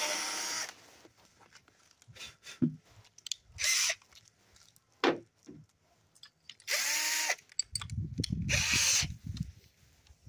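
Cordless drill running steadily, cutting off under a second in; then a few short bursts of noise and clicks, and a low rumble near the end.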